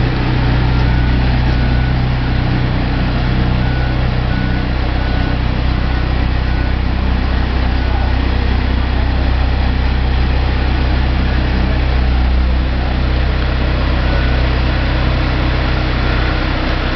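Mobile boat hoist (travel lift) engine running steadily while it lifts a motor cruiser out of the water in slings.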